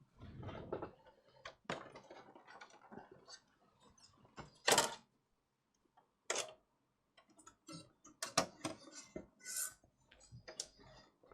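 Scattered light clicks and knocks of a PlayStation 5's plastic parts and tools being handled during a repair, with a few sharper knocks, the loudest about halfway through.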